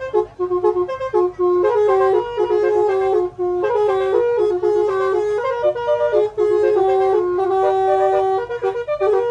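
Basuri telolet horn, a multi-trumpet bus horn, playing a melody: a quick run of stepped notes with several tones sounding together and one long held note near the end.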